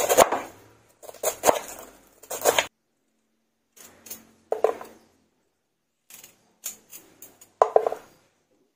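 Kitchen knife chopping shredded raw cabbage on a wooden chopping board, several crisp strokes in the first few seconds. After a short break, a knife cuts into a raw carrot to trim off its green top, with a few separate crunchy cuts.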